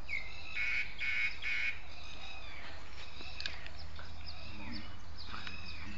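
Birds calling repeatedly: high chirps and short falling whistles, loudest in three harsh calls about a second in, over a steady low hum.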